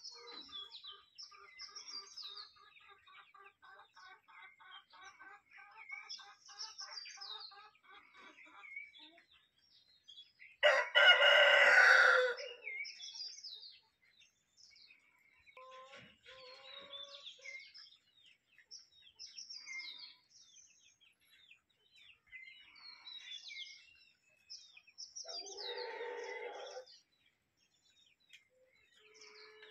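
Chickens clucking in a run of short, repeated calls, then a rooster crowing loudly once about eleven seconds in, with another long call later on. High chirps are scattered throughout.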